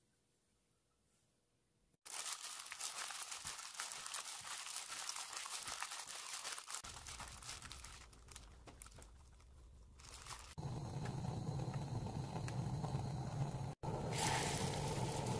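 After two seconds of near silence, a thin plastic glove crinkles and squelches as a gloved hand mashes tofu with raw eggs and sesame seeds in a glass bowl. About ten seconds in, this gives way to a steady low hum with a hiss over it as the egg-tofu batter goes into a frying pan.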